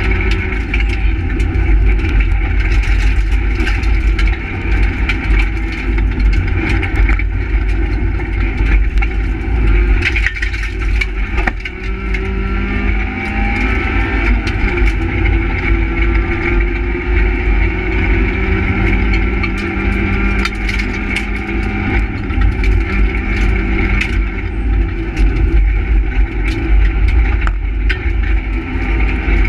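Renault Twingo R1 rally car heard from inside its stripped cabin at stage pace: the engine revs hard, rising and falling through gear changes, over a constant low rumble from the road and bodyshell.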